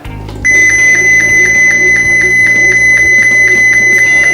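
Keypad alarm buzzer sounding one loud, steady high-pitched tone that starts about half a second in and holds without a break, the alarm output being triggered. Background music plays faintly underneath.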